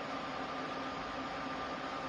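Steady electrical hum with an even whirring hiss, like a small cooling fan running, unchanging throughout.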